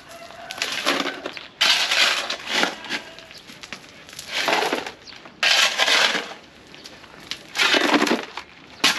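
A shovel scraping into a gravel and stone pile and tipping loads into a steel wheelbarrow, in repeated gritty scoops about every second or two.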